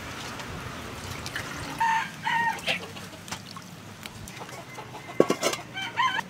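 Chickens clucking in the background: two short calls about two seconds in and more near the end, with a sharp knock about five seconds in.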